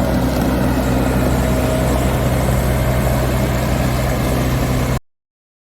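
Diesel engine of a Komatsu PW110 wheeled excavator running steadily with a deep drone; the sound cuts off abruptly near the end.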